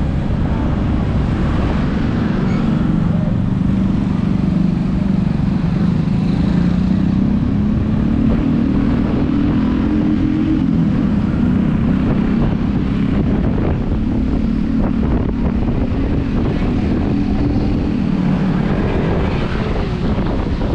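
Motor vehicle engine running steadily, its pitch drifting slightly up and down.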